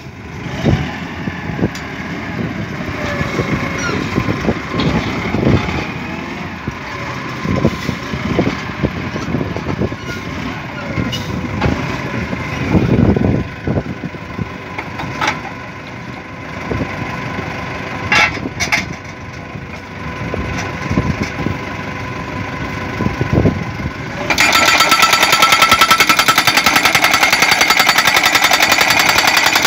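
DD950B hydraulic pile driver's engine running with hydraulics working and occasional knocks as a steel crash-barrier post is set under the hammer. About three-quarters of the way through, the hammer starts pounding rapidly and steadily on the post, much louder, driving it into the ground.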